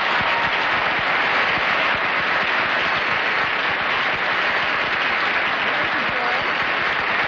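Studio audience applauding with steady, even clapping.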